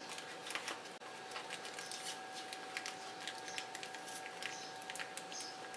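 Light crinkling and scattered small clicks of a Beyblade's cardboard box and plastic tray being handled as the box is opened and the tray slid out, over a faint steady hum.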